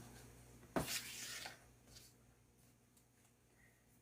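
A single sharp click about a second in, then half a second of rubbing, as the replacement laptop screen panel is pressed by hand into the display lid. The rest is near silence.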